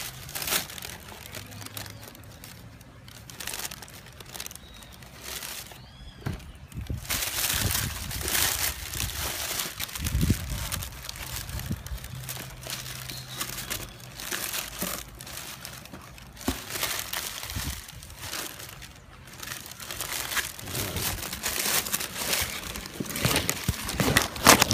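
Tissue paper crumpling and rustling as hands dig through a shoebox, coming and going in irregular bursts.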